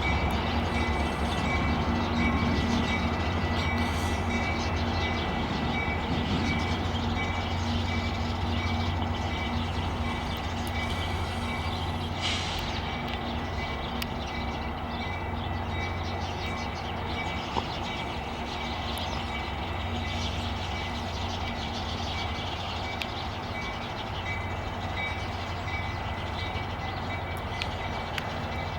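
Metra commuter train with diesel locomotive 401 on the move: a steady low engine rumble mixed with rail and wheel noise, slowly getting quieter. A bell rings at an even, repeating beat over it.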